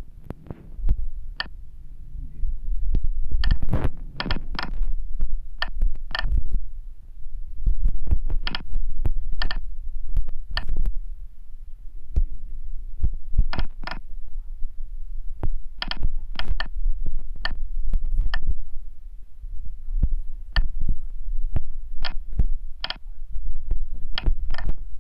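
Irregular short clicks from taps on a phone's on-screen keypad as a G-code line is typed, some coming in quick pairs and threes, over a steady low hum.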